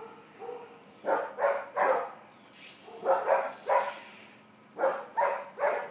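A dog barking in three quick runs of three short barks each, with pauses of about a second between the runs.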